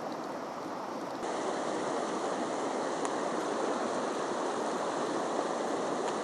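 A small mountain stream running steadily, its flow swollen and murky after days of heavy rain; it gets a little louder about a second in.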